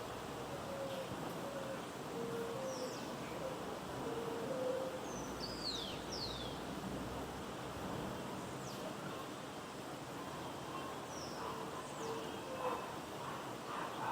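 Morning city ambience: a steady hum of distant traffic and city noise, with birds giving short, high, falling whistled calls every few seconds. A series of short low notes repeats through the first five seconds and again near the end.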